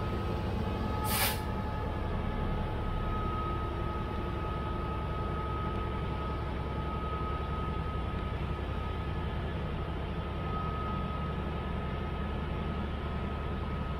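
Class 66 diesel locomotive running with a steady low drone and a faint high whine as it moves slowly away. A short hiss of air comes about a second in.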